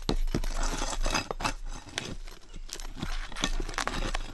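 Hand tools prying and scraping at old asphalt shingles and the roof deck: irregular knocks, clicks and scrapes as shingles are torn loose and staples pulled.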